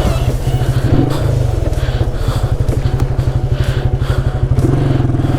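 Motorcycle engine running at fairly low revs with an even, rapid pulsing, picking up briefly about a second in and again near the end.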